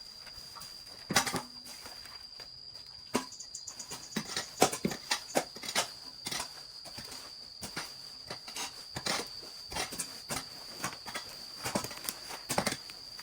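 A steady high insect trill, like a cricket or cicada, runs throughout, overlaid by irregular sharp clicks and snaps, the loudest about a second in and again around four to five seconds in.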